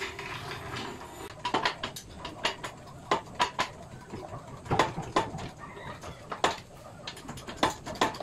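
A series of irregular sharp clicks and light knocks, about a dozen spread over several seconds.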